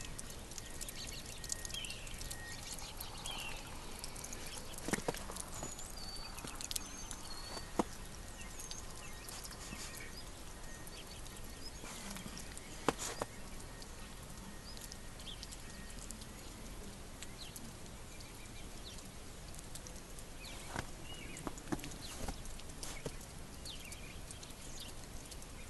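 Outdoor ambience: a steady hiss with scattered short bird chirps and a few sharp taps spread through.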